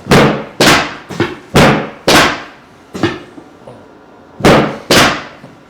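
Chiropractic drop table's pelvic section dropping under the doctor's thrusts during sacroiliac (PI/AS) adjustments. Six loud, sharp clacks come in three pairs, each with a short ringing tail, with a couple of fainter knocks between them.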